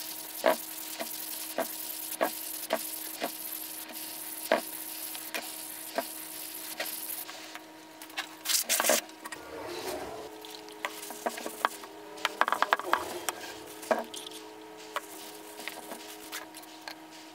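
An abrasive sanding block rasps back and forth on the rusty steel shaft of an electric motor's rotor, about two strokes a second, and stops about seven seconds in. Scattered clicks and knocks of the metal shaft being handled on a wooden workbench follow.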